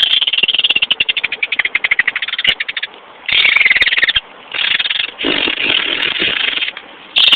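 A man making a deliberately annoying noise with his mouth: a rapid buzzing, croaking trill of about a dozen pulses a second. It comes in one long run, then three shorter bursts with brief pauses between them.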